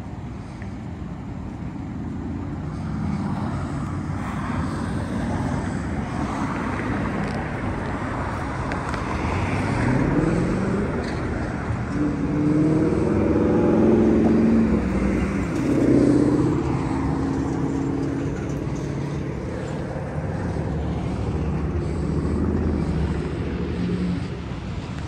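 Road traffic passing at an intersection: a steady rumble of cars driving by. About ten seconds in, one vehicle's engine note rises as it accelerates, and the engine sound is loudest around thirteen to sixteen seconds in.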